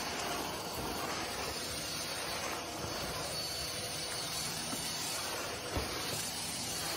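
A steady, even hiss of noise, with a faint low knock near the end.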